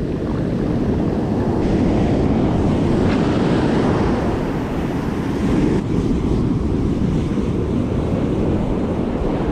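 Ocean surf breaking and washing up the sand, with wind buffeting the microphone in a steady rush of noise.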